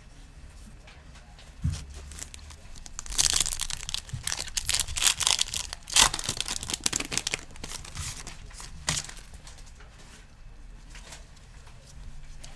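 Foil trading-card pack being torn open and crinkled, in rustling bursts through the middle, with a sharp crack about six seconds in.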